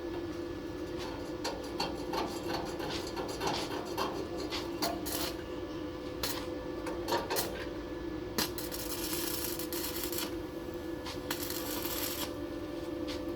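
Metal parts being handled in a workshop: irregular light taps and clinks over a steady hum, with two short spells of hissing noise in the second half.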